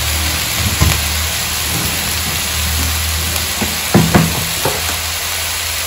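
Pumpkin pieces sizzling in a pan of hot oil, a steady hiss, with a few short clatters of the stirring spoon against the pan about a second in and, loudest, around four seconds in.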